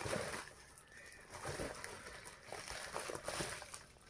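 Handling noise from an opened parcel: irregular rustling and light clicks that fade away near the end.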